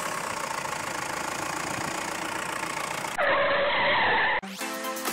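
Plastic wheels of a toy pickup truck rolling across a gritty floor, a steady rough noise. About three seconds in it cuts to a loud, roughly one-second sound effect with a few held tones, and electronic music starts near the end.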